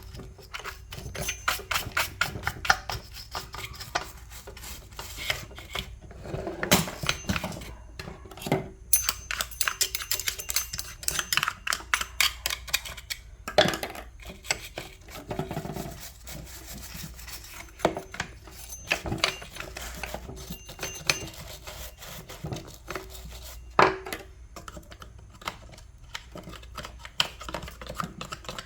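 Chainsaw parts being scrubbed and handled during cleaning: irregular clicks, knocks and scraping strokes throughout.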